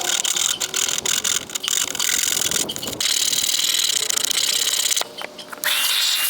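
Hard scraping and rasping of a tool working the cut-out opening in the boat's deck, in quick strokes and then steadily. Near the end a steady whine rises, holds and falls away.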